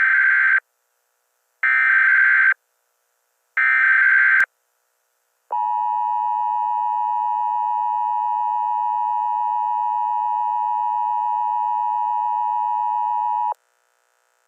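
Emergency Alert System SAME header: three short bursts of digital data tones, each about a second long, two seconds apart. They are followed by the steady two-tone EAS attention signal, held for about eight seconds before cutting off. Together they mark the start of an emergency alert broadcast.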